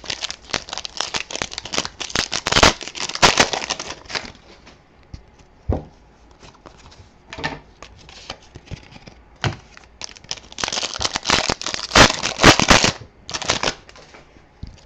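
Trading card pack wrapper crinkling and tearing as packs are opened and the cards handled, in two spells, the first over the first four seconds or so and the second from about ten and a half to thirteen and a half seconds in, with a few light knocks and taps between.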